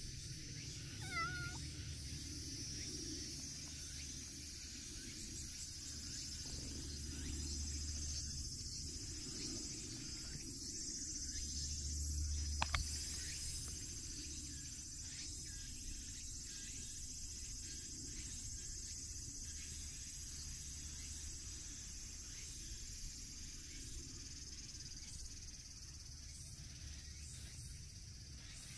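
A brown-tabby-and-white cat gives one short meow about a second in. After that there is only a steady high background buzz and a single sharp click about halfway through.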